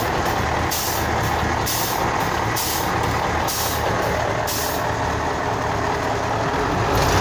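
Truck engine idling with a steady low hum, overlaid with short hissing bursts every half second to a second that stop about five seconds in. The truck is overheating and leaking from a hose.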